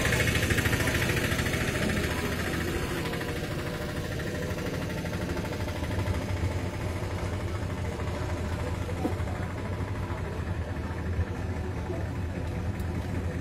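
Motor vehicle engines idling in stopped traffic: a steady low hum, with louder road noise fading over the first few seconds.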